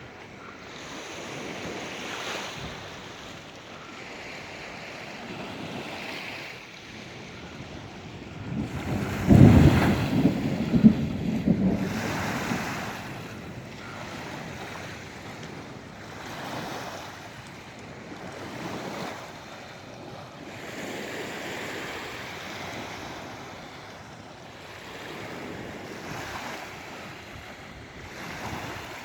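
Sea waves washing onto the shore in repeated surges, with wind blowing across the microphone. About nine seconds in comes a much louder, deep, buffeting burst lasting a few seconds.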